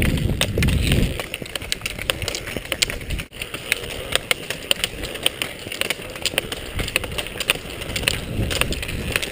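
Roller skis rolling on asphalt, with frequent sharp clicks of ski pole tips striking the road as several skiers skate and pole uphill. A low rumble in the first second.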